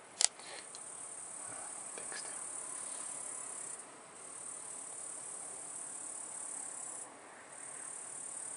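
Crickets trilling steadily on a high note, breaking off briefly twice. A single sharp click about a quarter second in is the loudest sound.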